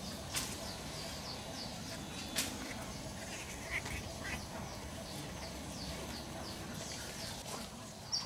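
A bird chirping: a run of short, high, falling notes, about three a second, over faint background noise with a few light taps.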